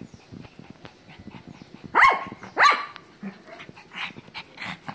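Shih Tzu barking: two loud barks about half a second apart, around two seconds in.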